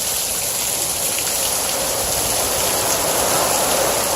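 Heavy rain from Hurricane Irma pouring steadily.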